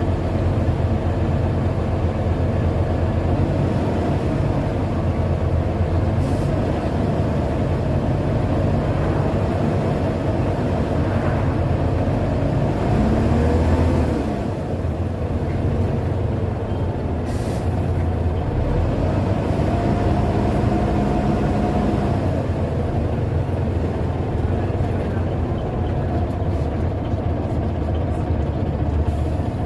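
Scania OmniDekka double-decker bus's diesel engine, heard from inside on the upper deck, running under load along with road noise; its pitch climbs as it pulls and then drops at a gear change about halfway through, climbs again a few seconds later, and starts rising once more right at the end.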